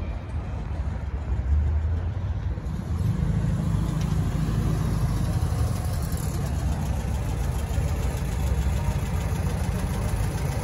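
A car engine idling steadily with a low rumble.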